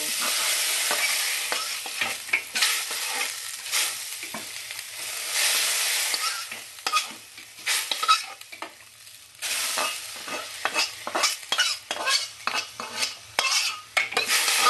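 Steel spatula scraping fried moong dal out of a black karai into a pot of hot water, in many quick scrapes against the pan, with a few longer stretches of hiss, the longest at the start and another around the middle.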